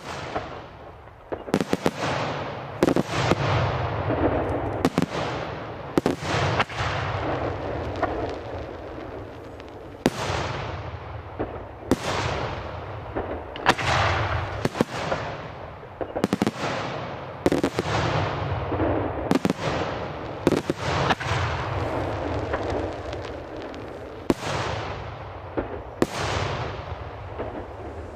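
Aerial firework shells bursting in quick succession, a sharp bang about every second or so, each trailing off in a fading rumble before the next.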